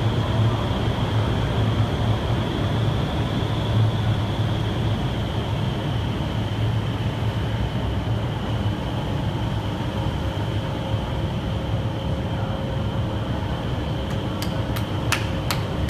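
Indoor skydiving wind tunnel running: a steady rush of air from the tunnel's fans, with a low hum and a high whistling tone through it. A few sharp clicks near the end.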